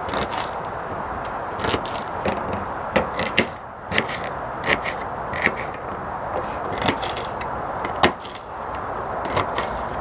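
Small knife chopping shallots on a board: irregular sharp knocks of the blade, about one every second, the loudest a little after eight seconds in.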